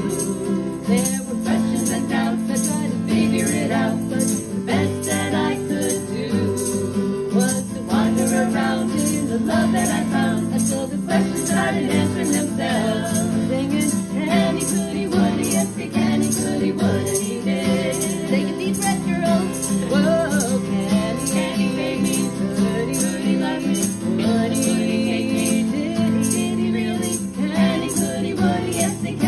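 Women singing a hymn-like song to a steadily strummed acoustic guitar.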